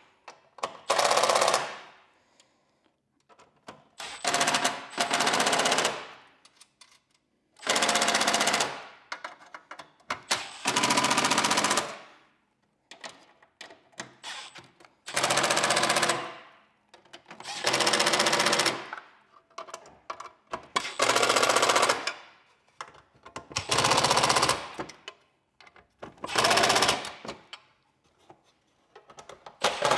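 Cordless impact driver tightening screws in short bursts, about ten runs of a second or two each with a rapid hammering rattle, pausing between screws.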